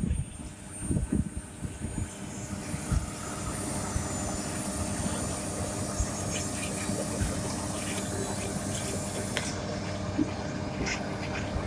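Diesel engine of heavy road-building machinery running steadily, with a few knocks in the first three seconds.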